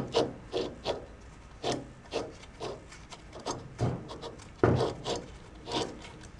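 Pinion shaft of a Toyota Tundra rear differential carrier turned by hand in its roller bearing, which has been washed out and blown dry, giving a dozen or so irregular gritty scraping rasps.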